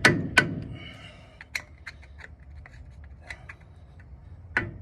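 Hammer tapping a flathead screwdriver against the metal cap of a truck's front wheel hub to work it loose: two sharp strikes at the start, light metal clicks and clinks in the middle, and tapping again near the end.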